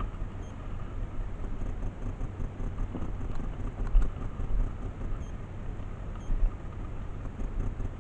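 Wind buffeting the microphone: a low, uneven rumble, with one short click about four seconds in.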